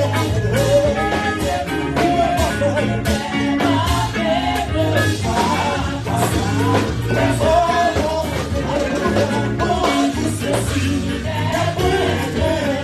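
Church worship team singing a French-language hymn in several voices, accompanied by a live band with keyboard, bass and drums keeping a steady beat.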